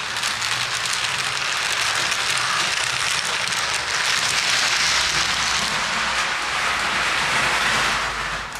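A model HST train with a motorised power car running close past on its layout track: a steady loud rushing rattle of wheels on the rails, with a low motor hum beneath. It cuts off near the end.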